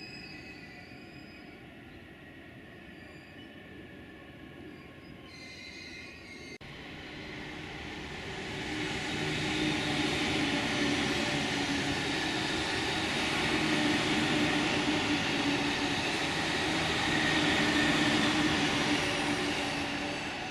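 An electric train running past on the line, its rolling wheel-on-rail noise building to loud and holding steady with a low hum underneath, then cutting off suddenly. Before it builds, the first few seconds are quieter, with faint high squealing tones.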